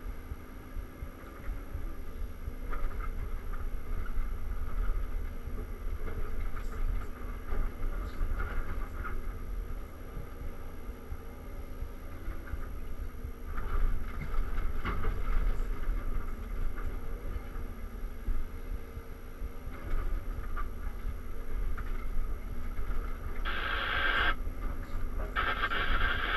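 Cat 323 tracked excavator's diesel engine and hydraulics working steadily, heard from inside the cab, as the bucket digs in blasted rock. Bursts of grating noise come every few seconds, loudest twice near the end, as the bucket scrapes through the rock.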